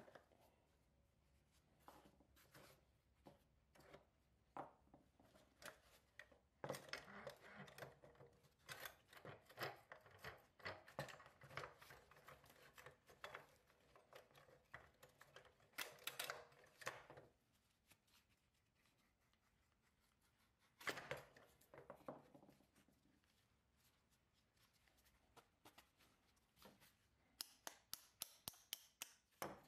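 Faint clicks, scrapes and clatter of small metal parts as the wheels are worked off the axles of a rusty pressed-steel 1954 Tonka trailer, with a quick run of about five ticks a second near the end.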